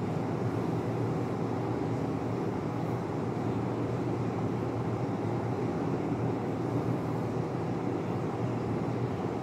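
Steady low background rumble with no change or breaks, the kind of room or machine noise that fills a quiet room.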